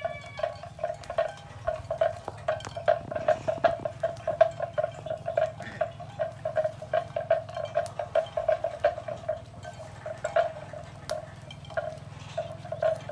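Crackles and light clinks from a small wood cooking fire and its wire grill being tended, over a steady tone that pulses about four times a second throughout.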